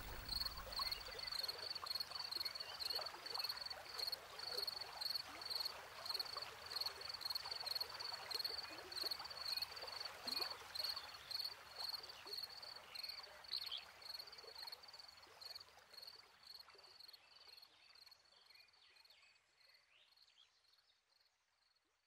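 Nature ambience: a high, rhythmic chirping call about twice a second over a soft hiss, fading out in the second half.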